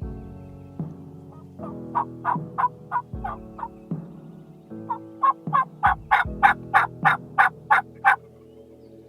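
Wild turkey yelping: a short run of evenly spaced yelps, then after a pause a longer, louder run, about three yelps a second.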